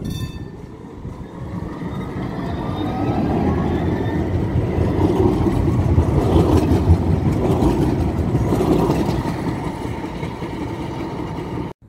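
Low-floor electric tram pulling away and passing close by: the traction motors whine, rising in pitch as it accelerates, under a rumble of wheels on rail that is loudest as it goes past about six seconds in. The sound cuts off suddenly near the end.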